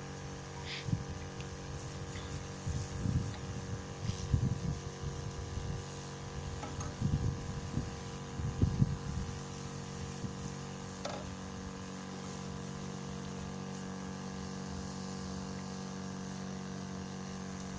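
A small motor humming steadily at a constant pitch. Uneven low buffeting comes and goes over it in the first half.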